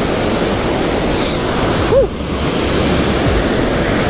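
Ocean surf breaking and washing up a sandy beach, a steady rushing noise. A brief short tone sounds about halfway through.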